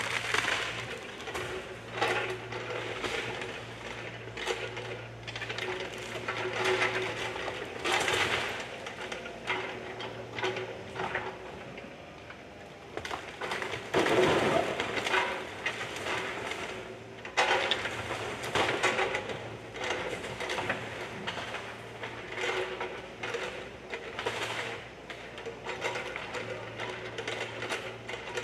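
Bobcat mini excavator's diesel engine running steadily while its bucket knocks down a brick wall. Repeated crashes and clatter of falling brick, wood and debris, the loudest burst about halfway through.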